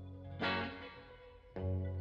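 Instrumental song intro: guitar chords with effects, one struck about half a second in and left ringing out, the next struck near the end.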